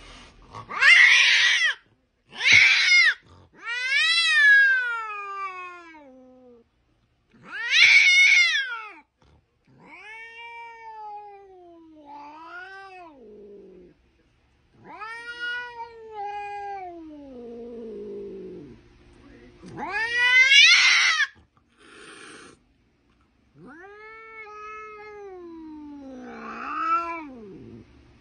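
Domestic cat meowing over and over: about a dozen long, drawn-out calls that rise and then fall in pitch. Some are loud and harsh, others quieter wails that slide down at the end.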